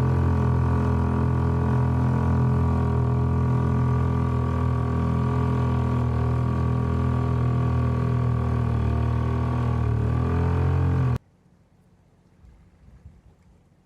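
Boat engine running steadily with a low, even drone, its pitch sagging slightly just before the sound cuts off abruptly near the end.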